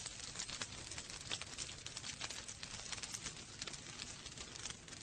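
Rain pattering: many small drop ticks scattered over a soft, steady hiss.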